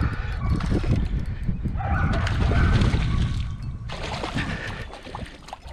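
Wind rumbling on the microphone, with water splashing as a hooked bass thrashes at the surface near the bank.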